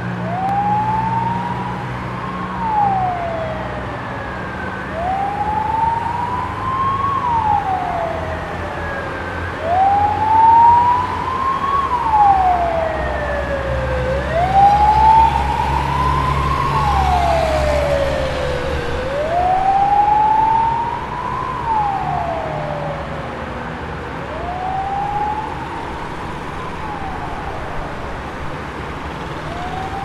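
Fire truck siren on a slow wail, rising and falling about every four to five seconds, over street noise and a truck's engine. It grows loudest midway and fades somewhat toward the end as the truck drives by.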